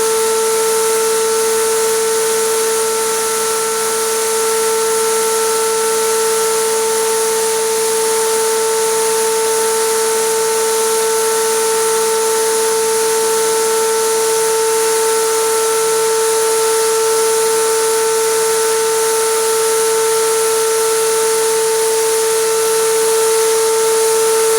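Compressor-fed spray gun spraying acrylic resin: a steady hiss of air, with a steady whine over it.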